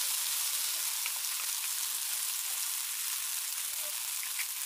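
Ground green pea paste sizzling as it fries in hot mustard oil in a kadhai: a steady frying hiss with a few small pops.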